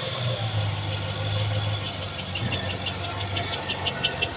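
Car engine idling with a fast, regular ticking from a valve lifter, several ticks a second. The ticking comes in about halfway through and grows louder.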